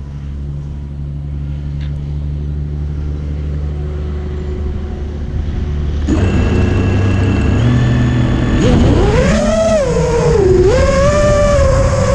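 FPV quadcopter's brushless motors: a low steady hum at first, then spooling up about six seconds in. The pitch climbs into a whine, dips briefly and rises again to a steady whine as it lifts off and flies.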